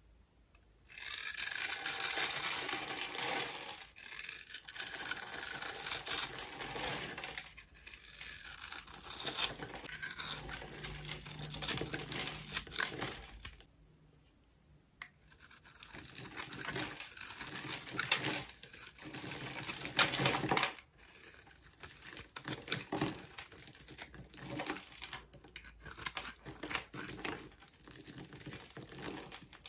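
A knife carving cubes into a bar of dry soap: crisp, crunchy scraping and crackling strokes in runs of a few seconds, with a short pause about fourteen seconds in.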